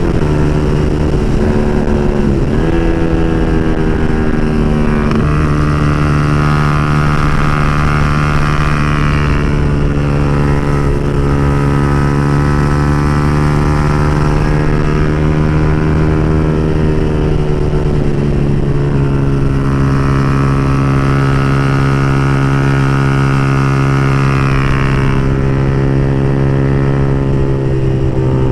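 Yamaha R15 V3's single-cylinder engine running through an open exhaust pipe, holding a steady pitch while riding. The pitch dips and shifts a few times, about two seconds in and again past the halfway mark, as the revs change.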